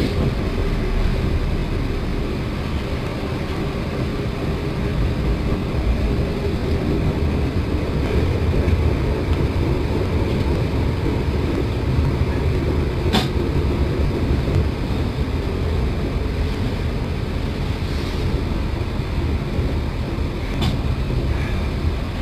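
Steady low rumble of a moving passenger train heard from inside the carriage, with two brief sharp clicks, one about halfway through and one near the end.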